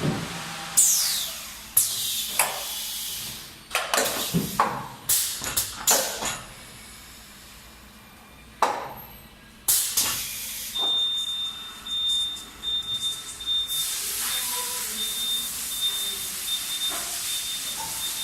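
Pneumatic actuators on a Haffner PVC window welding and corner-cleaning line: sudden air hisses and clanks as the clamps and cylinders cycle, then a steady hiss with a high, broken beeping tone.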